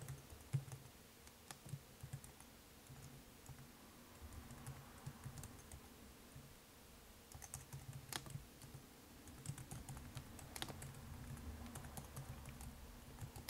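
Faint typing on a computer keyboard: scattered keystrokes in short runs with pauses, and two clicks louder than the rest about eight and ten and a half seconds in.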